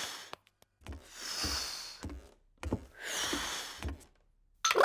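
Three breathy blows of air, each about a second long, with no whistle tone coming through: a child's failed attempt to whistle.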